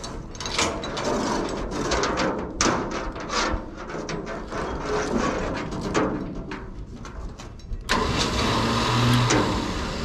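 Chainsaw being pull-started: a run of rough, uneven pulls, then the engine catches about eight seconds in and runs briefly.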